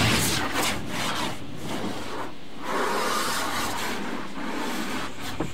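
Automatic car wash working over the car, heard from inside the cabin: brushes rubbing and water washing across the glass and body. It makes an uneven rushing, rubbing noise that swells and dips.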